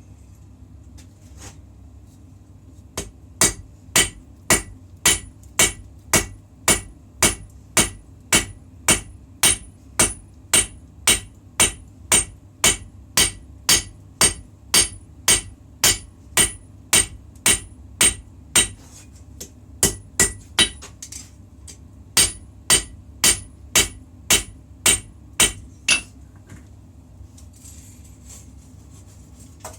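Hammer blows on a puukko blade at the anvil in a steady rhythm, about two to three a second, each with a bright metallic ring. There is a short break a little past the middle, then a last run of blows that stops a few seconds before the end. A steady low hum runs underneath.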